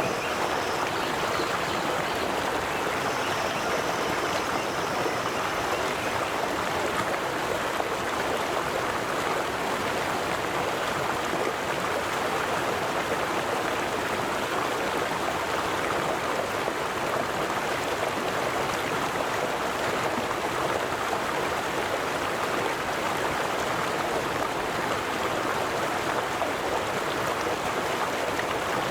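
River water flowing over and around stones in a steady, even rush with no change in level.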